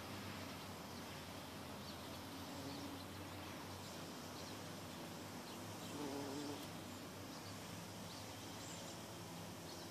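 Bumblebee buzzing in flight as it moves low among the flowers, a steady low hum that swells briefly about six seconds in.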